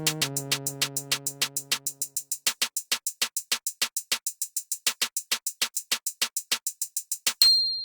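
Electronic music: a fast, steady ticking beat, about five ticks a second, under a low synth tone that drops in pitch and fades out within the first couple of seconds. Near the end a single bright ding rings on.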